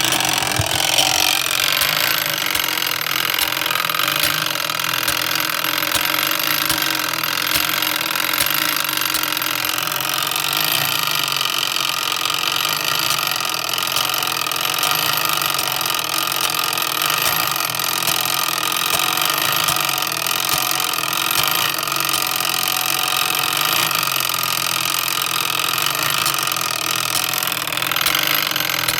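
The spring-wound coded mechanism of a Samson No. 50 fire alarm pull station runs after being pulled, making a steady mechanical whir.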